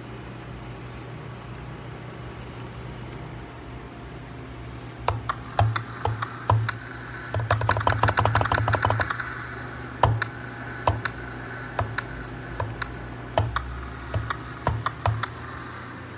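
Typing on a computer keyboard: scattered keystrokes starting about five seconds in, with a quick run of typing in the middle. A steady low hum runs underneath.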